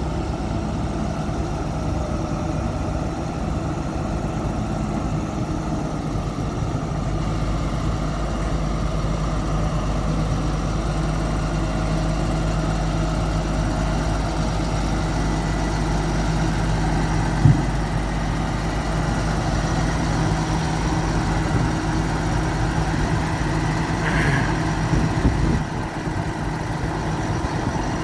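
Diesel engine of a 2006 International 4300 truck running steadily, powering the Manitex SX57 sign crane while its boom is raised. A single sharp click sounds about 17 seconds in, and a short louder patch comes near the end.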